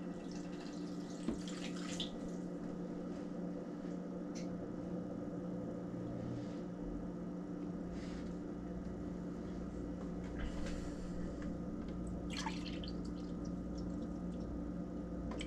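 White vinegar poured from a plastic jug into a glass measuring cup, with a few short splashes and trickles, the clearest near the end, over a steady low hum.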